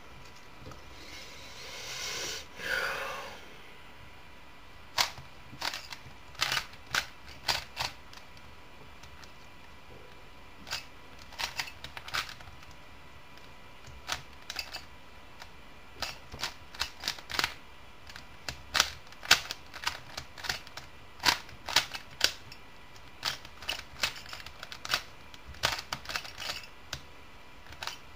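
Rubik's Cube being turned by hand: irregular sharp plastic clicks of the layers snapping round, in quick runs with short pauses. A short rustling noise comes about two seconds in, before the clicking starts.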